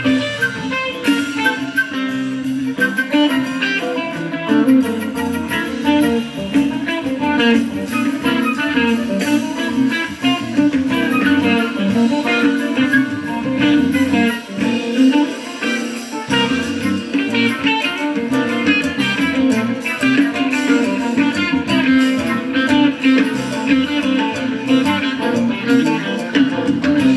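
Live rock band playing, with guitar prominent, continuing without a break.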